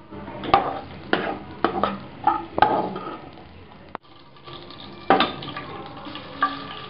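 A spoon knocking and scraping against the wok as fried cashews and dried red chilies are scooped out of the hot oil. There are about five sharp clinks in the first three seconds, then two more later.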